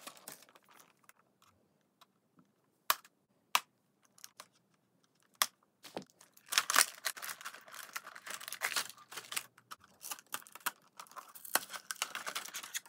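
Plastic cable ties being snipped, a few separate sharp clicks, then clear plastic packaging rustling and crinkling for several seconds as it is pulled free.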